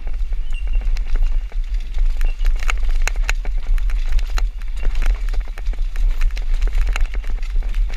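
Downhill mountain bike ridden fast over rough dirt: a steady clatter of the bike rattling with many sharp knocks over roots and stones, under a heavy rumble of wind on the microphone.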